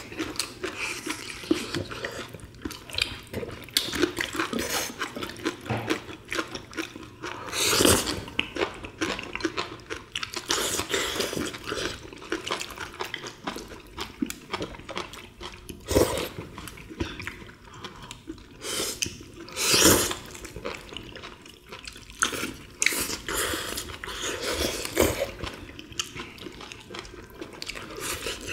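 Close-miked eating by several people: wet chewing and slurping of saucy braised monkfish and bean sprouts, with many small irregular clicks and a few louder bursts about 8, 16 and 20 seconds in.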